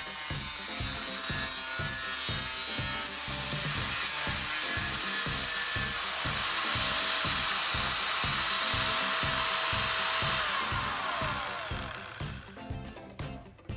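Angle grinder with an abrasive metal-cutting disc, mounted in a sliding cut-off stand, cutting through a plastic board: a steady high motor whine over a grinding hiss. About ten and a half seconds in, the motor is switched off and its whine falls as the disc spins down. Background music with a steady beat runs underneath.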